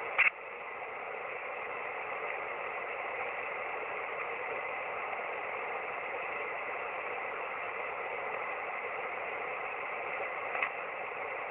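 Shortwave receiver hiss on the 17-metre amateur band in single-sideband voice mode: a steady band of static between transmissions. A brief loud burst comes about a quarter second in, and a fainter one near the end.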